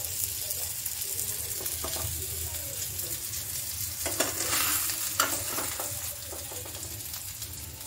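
Stuffed bitter gourds sizzling in a little oil in a frying pan, with a metal spatula scraping and knocking against the pan a few times as they are lifted out.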